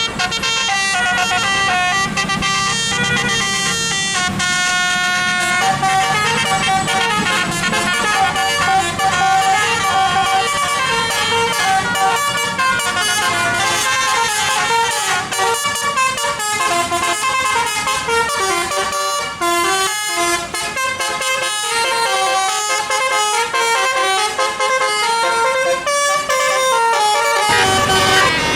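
Bus 'telolet' multi-tone musical horn playing a long, fast tune of stepped notes. A low engine rumble runs beneath it for about the first half.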